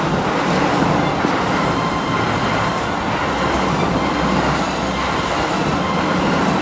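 Keio 7000-series electric commuter train running through a station at speed, close by. It gives a steady, loud noise of wheels on rail with faint regular ticks.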